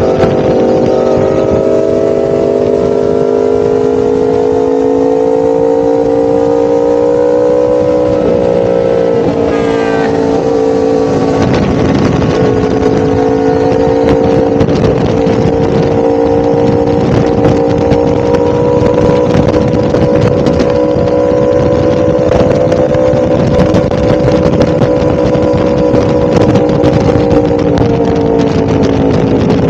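1000cc motorcycle engine running under way at a steady cruise, its pitch creeping up slowly, with a brief change in pitch about eight to ten seconds in before it settles into a steady run again.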